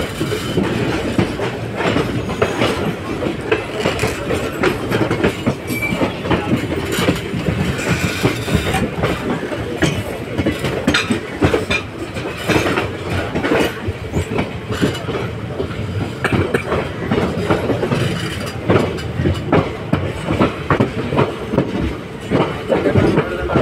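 Passenger train coaches rolling past close by, a continuous rumble with a stream of clattering knocks from the wheels on the rails.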